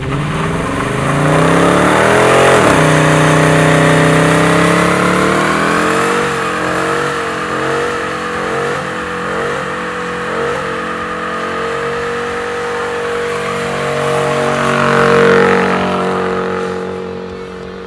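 Dodge Challenger's engine revving hard through a burnout, with the tyres squealing as they spin on the pavement. The revs climb sharply a couple of seconds in, waver up and down for several seconds, then hold high and steady before fading near the end.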